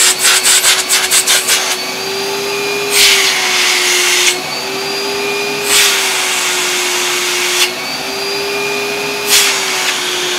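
Hoover Vogue 1300 bagged cylinder vacuum cleaner running with a steady motor hum while the open end of its hose is blocked and released by hand. There is a quick flutter of slaps over the first two seconds, then three longer rushes of air as the suction is shut off and let go, and the motor's pitch shifts slightly each time. This is a suction test: with the hose end blocked, the bag-check indicator lights.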